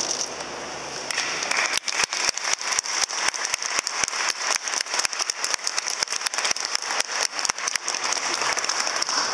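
Crowd applauding: many people clapping, starting about a second and a half in and going on until near the end.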